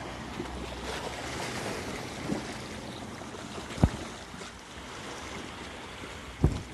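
Sea waves washing on the shore, with wind buffeting the microphone and a couple of short low thumps, one about four seconds in and one near the end.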